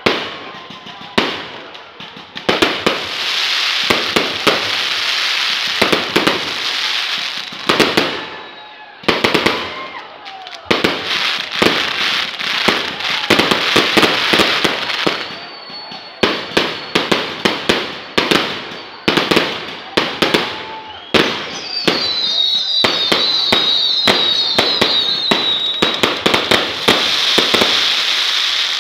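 Fireworks going off overhead: a rapid, irregular run of sharp bangs with stretches of dense crackling a few seconds in, in the middle and near the end, and a high wavering whistle over the crackle near the end.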